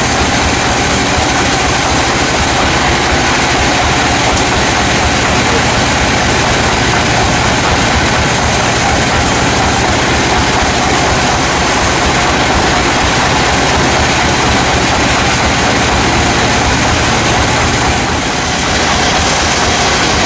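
Sawmill machinery running steadily: a loud, even mechanical noise of engine and saw, with a slight dip in level near the end.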